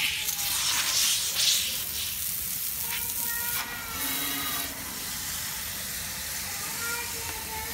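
Garden hose spraying water onto a window-type air conditioner's condenser to flush dirt from it: a dense, steady hiss of spray that starts suddenly and is loudest in the first second or so.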